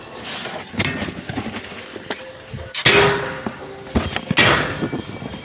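Handling noises: a few knocks and rustles, the loudest about three seconds in and again near the end.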